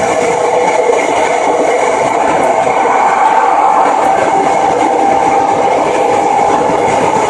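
Nagoya Municipal Subway 3000-series armature-chopper-controlled train running: a steady rolling rumble with several humming tones, one of which grows stronger about halfway through.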